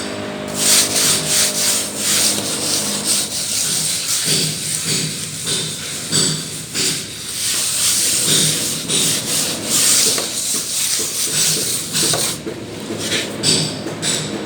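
A hand plastering tool scraping and rubbing across a wall in quick, irregular strokes, stopping near the end.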